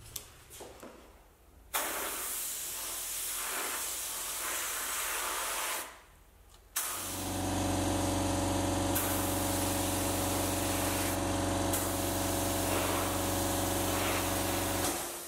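Spray hissing as a coating is sprayed on, in two long passes: about four seconds, a short break, then about eight seconds more. A steady low motor hum runs under the second pass.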